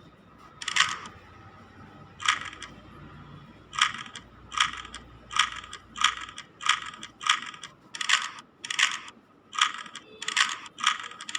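3x3 Rubik's Cube layers being turned by hand: a series of short plastic clacks, two spaced ones and then a steady run of about two turns a second, as a move sequence is repeated toward the solve.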